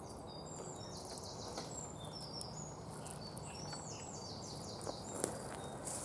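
Small songbird singing high, quick repeated notes in two short phrases, over a faint steady background hiss of the woods. A couple of faint clicks near the end.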